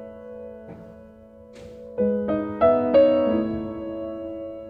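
Background piano music: held chords, with several new notes struck in quick succession about two seconds in.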